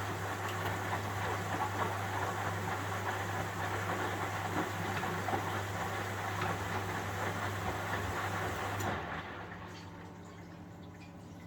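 1971 Constructa Garant 491 washing machine during a boil wash: rushing water with a steady mains hum, which cuts off suddenly about nine seconds in, leaving a quieter trickle of water.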